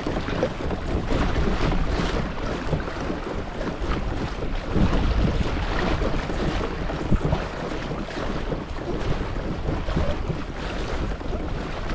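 Wind buffeting the microphone over the steady wash of water along a moving pedal kayak's hull.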